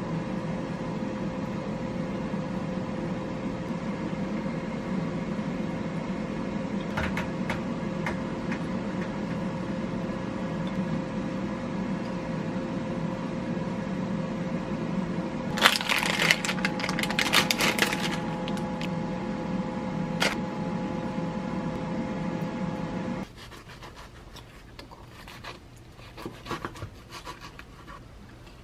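Food being handled and set into a ceramic bowl: scattered soft clicks and taps, with a busier run of them in the middle, over a steady hum that drops away about 23 seconds in. Near the end come faint crackles of a baked cake being torn into pieces.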